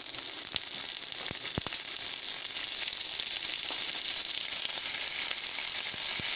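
Raw shrimp, freshly added, sizzling in hot oil in a frying pan with browned garlic and onions: a steady frying hiss with a few sharp pops of spitting oil.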